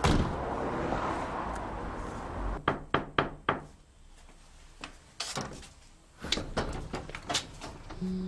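A car door slams shut. About two and a half seconds later come a quick run of four or five sharp knocks, then scattered clicks and rattles as a key and latch work an old door's rim lock.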